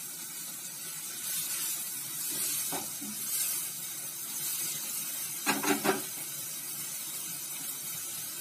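Mushroom and onion masala sizzling in a nonstick wok on a gas flame, stirred with a silicone spatula as its moisture cooks off, with a short clatter of a few quick knocks about five and a half seconds in.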